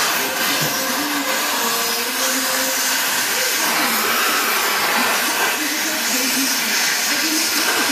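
Oxy-fuel cutting torch giving a steady hissing rush as its flame and oxygen jet cut through car body steel.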